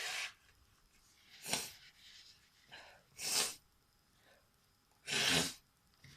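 A person sneezing and breathing sharply through the nose while trying to bring on a sneeze: about five short, noisy bursts. The loudest and longest comes about five seconds in.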